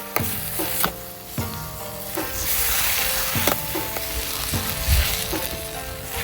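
Food sizzling and frying in a pan over a campfire and being stirred, with light taps of the utensil, under background music.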